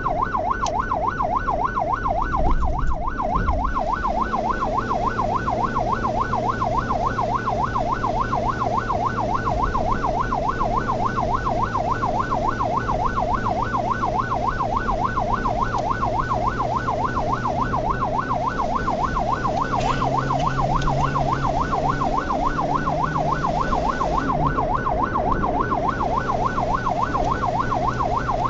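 Ambulance's electronic siren in fast yelp mode, sweeping up and down about four times a second, over the vehicle's engine hum and road noise. A short low thump comes about three seconds in.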